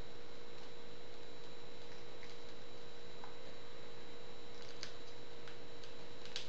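A steady electrical hum with a thin high whine above it, and a few faint light clicks near the end.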